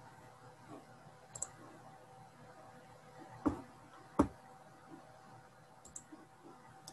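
Computer mouse clicking a few times, with two louder knocks about halfway through, over a faint steady hum.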